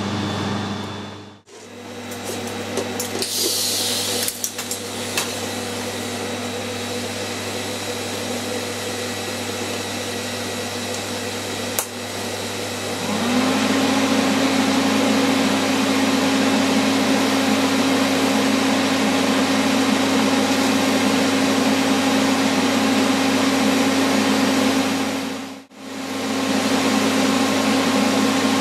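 TIG welder running, with a steady low electrical hum. About halfway through, a louder, steady buzz comes in with a short upward glide and holds.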